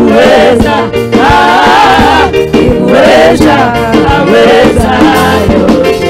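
Gospel music: singing voices over instrumental backing with percussion.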